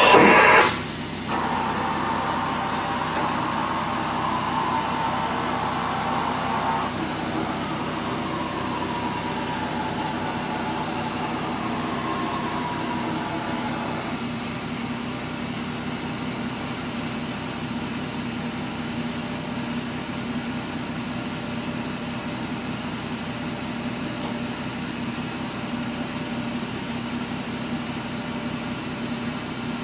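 1998 OKK PCV-55 CNC vertical mill running under power: a steady machine hum. A louder noise cuts off in the first second, and a thin high whine sets in about seven seconds in and holds steady.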